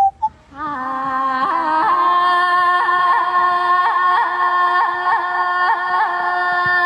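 A voice singing one long held melodic line with quick ornamental turns, coming in about half a second in, just after the last of a run of short repeated call-like tones.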